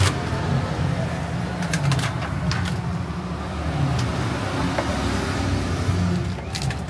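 Street traffic: a steady low rumble, with a few sharp clicks and taps scattered through it.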